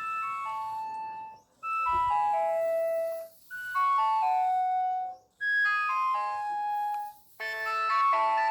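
Nokia 6560 mobile phone playing a ringtone: four short runs of bright electronic notes, each stepping downward, with brief gaps between them. About a second before the end it becomes a fuller passage with several notes sounding at once.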